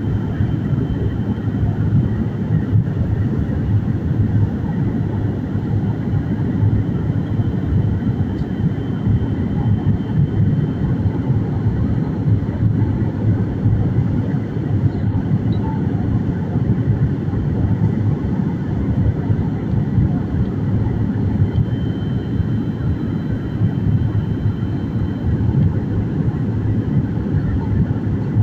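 Steady low rumble of an airliner in flight, heard from inside the passenger cabin, with a faint high whine over it.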